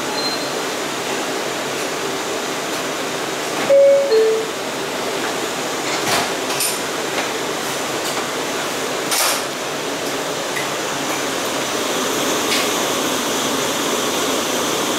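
Steady rushing noise inside an R179 subway car. About four seconds in, a short two-note chime steps down in pitch, and a few light clanks follow.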